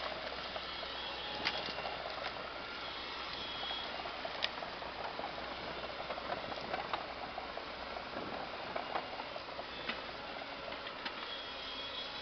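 Excavator running with a low, steady hum under dense light crackling, and a few sharp snaps about one and a half and four and a half seconds in.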